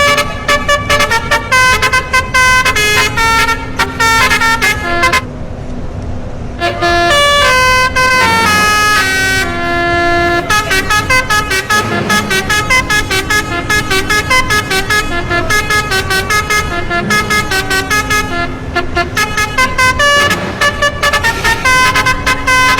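Basuri telolet bus horn playing a fast melodic tune of short stepping notes, pausing briefly about five seconds in, over a steady low note.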